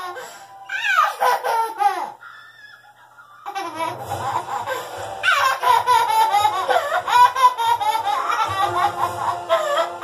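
A toddler laughing hard in repeated bursts, with an older girl laughing along. The laughter breaks off briefly about two seconds in, then picks up again and keeps going.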